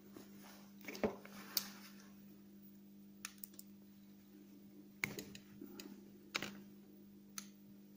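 Faint clicks and taps of hands working fishing line and a small pair of pliers at a wooden table: a scattering of sharp, irregular clicks, the loudest about a second in, over a steady low hum.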